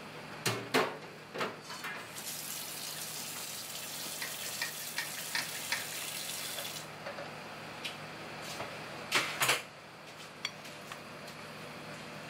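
A metal fork clinking and scraping against a plate, several sharp clicks early on and a couple more near the end, with a steady hiss like running water for several seconds in the middle.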